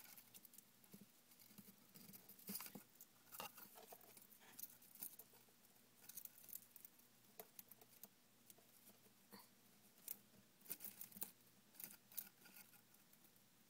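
Faint, irregular dry crackles and clicks of hay as a Russian winter white dwarf hamster nibbles at it.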